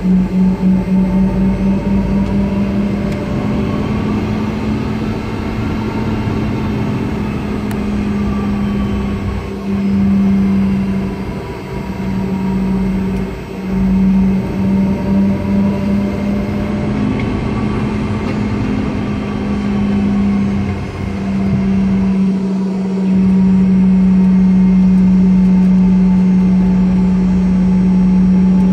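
Boeing 717's rear-mounted Rolls-Royce BR715 turbofans heard from the cabin at taxi power: a steady low drone that pulses in and out at times. It turns smoother and a little louder in the last few seconds.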